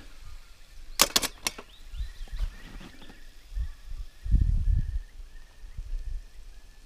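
A few sharp metallic clicks about a second in, as the frying pan goes back onto the Trangia stove, then a low rumble near the middle. Faint bird song runs underneath: one short high note repeated steadily.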